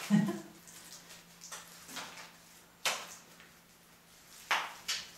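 Wet clay plaster with chopped straw being pressed and slapped onto a wall by hand. A short low thump comes right at the start, then three sharp slaps, one near the middle and two close together near the end, over a faint steady hum.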